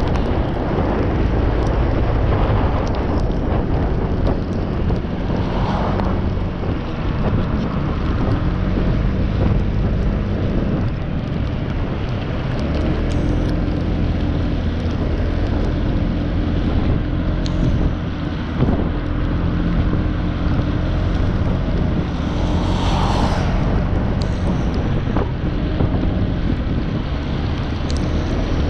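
Honda PCX scooter riding on a wet road: its single-cylinder engine running under heavy wind noise on the helmet microphone and tyre hiss, with a brief louder rush of hiss about 23 seconds in.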